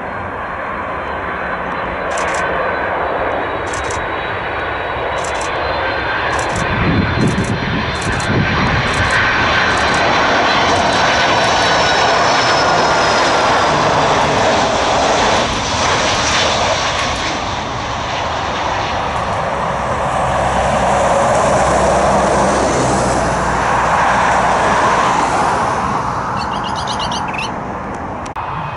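Twin-engine widebody jet airliner on final approach, its engines giving a steady rushing noise with whining tones that slide down in pitch as it passes. The noise builds, stays loud through the middle and eases near the end.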